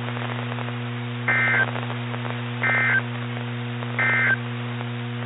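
Emergency Alert System end-of-message signal: three short bursts of two-tone SAME digital data warble, about one a second, over a steady low hum.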